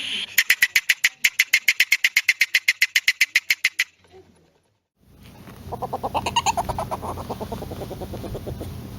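Polecat calls: a fast, high chatter of sharp pulses, about eight a second, stops abruptly. After a short silence, a lower, rapid clucking chuckle starts.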